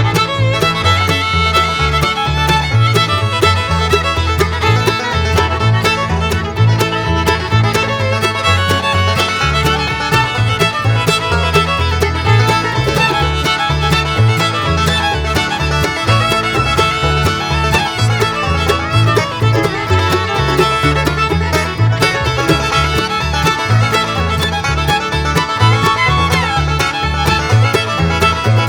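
Background bluegrass music with fiddle, banjo and guitar over a steady bass beat.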